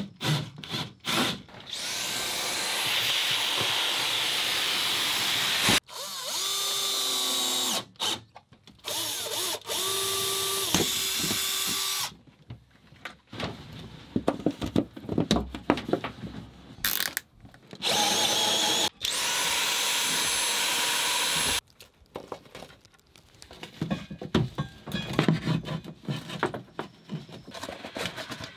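Cordless drill running in several bursts of a few seconds each, driving a hole saw through a wooden panel, the motor slowing in one of them. Knocks and clicks of parts being handled come between and after the runs.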